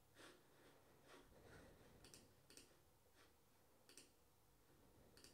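Near silence, with about seven faint, scattered clicks of a computer mouse.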